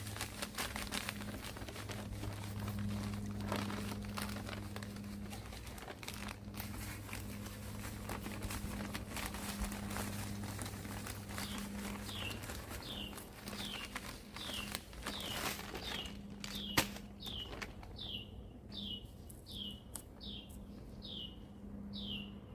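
Bag crinkling and rustling with scattered light ticks as Epsom salt is handled and shaken out over garden soil, over a low steady hum. From about halfway, a bird calls again and again with short falling chirps, about two a second.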